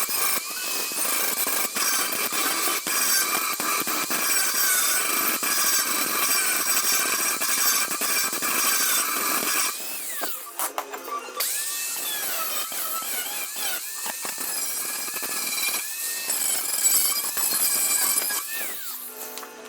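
Angle grinder working the Vespa PX's steel body panel: a loud, steady whine over a harsh grinding hiss. It stops about halfway through and spins back up about a second and a half later, its whine rising as it gets up to speed.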